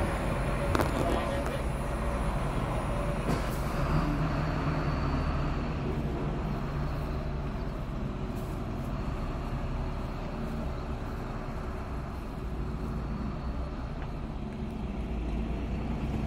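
Large diesel coach engine running steadily at low revs as the bus moves off slowly, with a couple of short sharp clicks about one and three seconds in.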